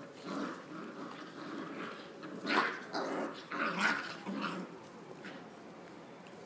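Two Jagdterrier puppies play-fighting, growling at each other, with two louder outbursts about two and a half and four seconds in.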